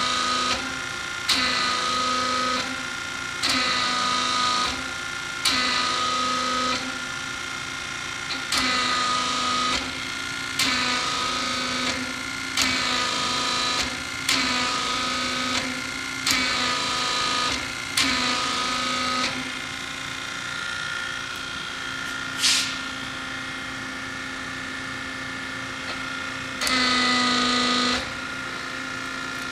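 Hydraulic power unit running a Kitagawa S1552 rotating hydraulic actuator cylinder on a test stand, its steady hum rising to a louder, hissing surge for about a second roughly every two seconds as the cylinder is cycled, each surge starting with a sharp click. Later it settles to the steady hum, with a single sharp click and then one more surge near the end.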